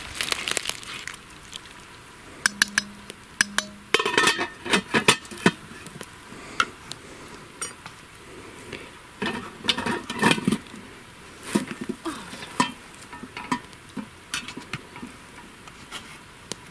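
Clinks and knocks of a lid going onto an enamel cooking pot and the pot being handled, then hung from a tripod hook over a campfire. The clinks come in several irregular clusters.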